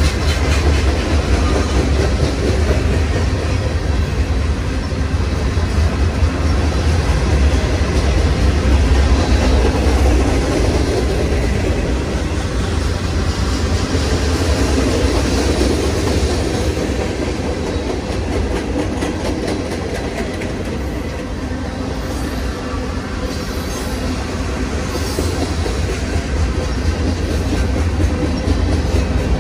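Freight train cars rolling steadily past at close range: the loud, continuous rumble and clatter of steel wheels running on the rails.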